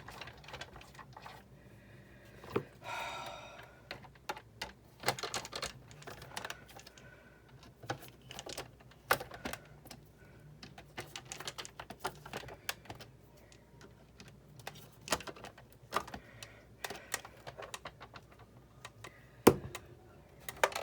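Irregular light clicks and taps of small screws, tools and parts of a Big Shot die-cutting machine being handled on a tabletop during disassembly, with one louder knock near the end.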